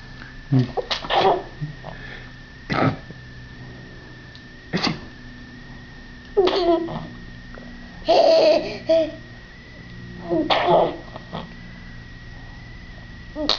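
A child sneezing and laughing in about six short bursts a second or two apart, the longest about eight seconds in.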